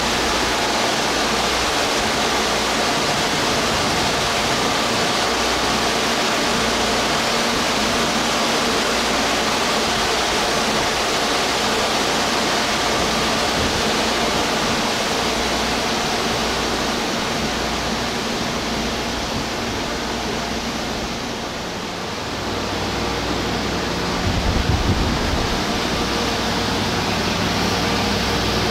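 Stationary 413/455 series electric train with its on-board equipment running, air conditioning and blowers giving a steady whirring hiss with a faint hum. A brief low rumble comes near the end.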